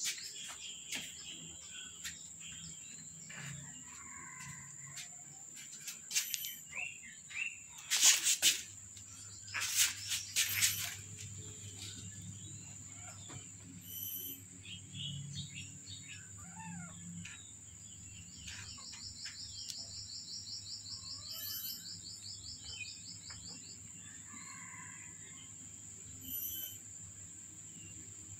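Outdoor ambience: a steady high insect buzz with birds chirping now and then, and a rapid trill about two-thirds of the way through. A few loud short noises stand out about a third of the way in.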